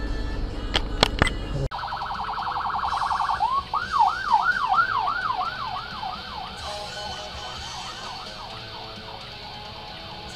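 Ambulance siren close by: a rapid warble that switches after a couple of seconds to a yelp sweeping up and down about three times a second, then growing fainter as the ambulance moves away.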